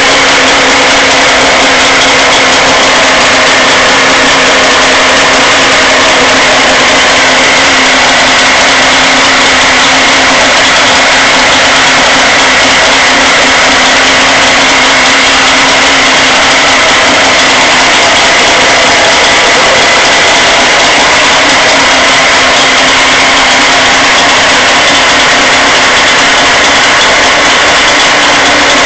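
Suzuki 40 hp outboard motor running loud and steady at an unchanging speed, test-run on a newly fitted CDI ignition unit.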